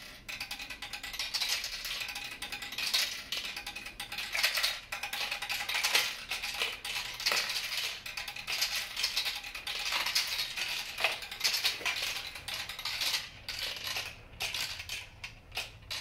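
Marbles rolling and clattering down a plastic marble run, a dense, continuous rattle of small clicks and knocks.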